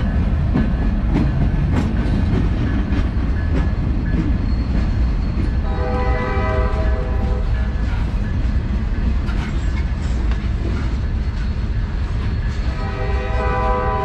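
Long manifest freight train rolling slowly past at trackside: a steady low rumble of steel wheels with clicks as the cars cross the rail joints. A horn chord sounds twice, about six seconds in and again near the end.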